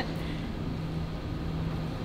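Room tone of a large hall: a steady low rumble with a faint constant hum.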